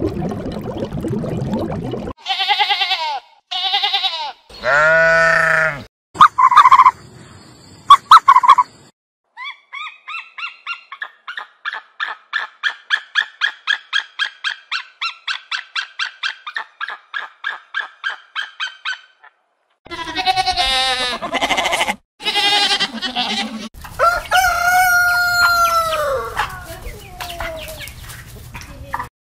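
A series of animal sounds: murky water noise, then a few short loud calls, then an eagle calling in a long run of quick yelping notes, about three a second. Chickens clucking follow, and a rooster gives one long crow that falls in pitch at the end.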